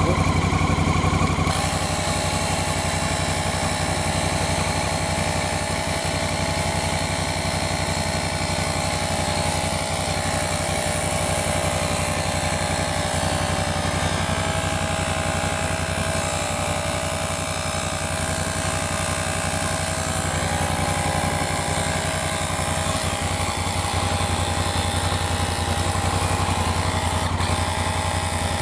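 Honda Africa Twin CRF1000L parallel-twin engine idling steadily to power a 12 V tyre compressor. The compressor starts with a steady whine about a second and a half in and runs on, inflating a motorcycle inner tube.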